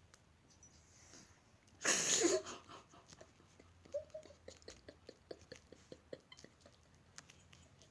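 A sudden, loud, harsh vocal burst lasting about half a second, about two seconds in. It is followed by a run of short, quiet puffs, about four a second, with a brief voice-like chirp near the middle.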